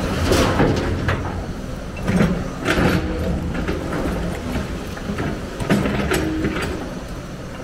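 Hyundai 290 excavator's diesel engine and hydraulics running steadily under working load, with several sharp knocks and clatters of broken masonry rubble as the bucket dumps into the truck and digs into the debris pile.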